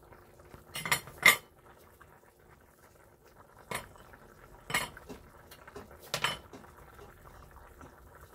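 A metal ladle and spoon clinking and knocking against a plate and bowl, in a handful of separate knocks a second or more apart, the loudest just over a second in.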